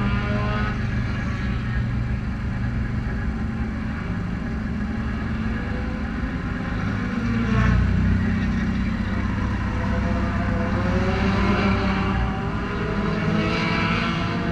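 Race car engines idling while the cars sit lined up, with short revs about halfway through and again near the end.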